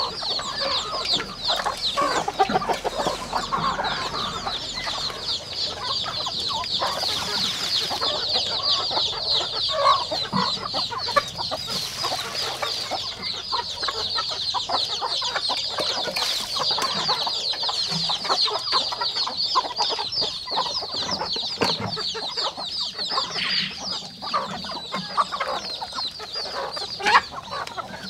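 Chickens clucking and calling as they feed from a bowl, over a steady, dense high-pitched chirping.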